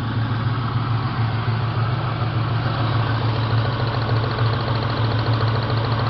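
A 1998 Ford Mustang's 4.6 L V8 idling steadily, with an even rhythmic hum and a faint fast ticking above it.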